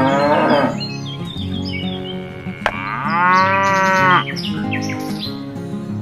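A cow mooing twice, the second call longer, over background music.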